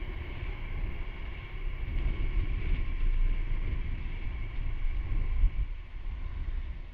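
Honda Super Cub C125's small single-cylinder four-stroke engine and exhaust running while riding, with wind rumbling on the microphone.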